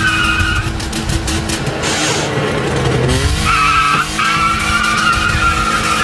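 Car tyres squealing as they spin on a dirt track while the car's engine revs hard against a tow strap. The squeal breaks off about half a second in and returns after about three seconds, as the engine pitch rises.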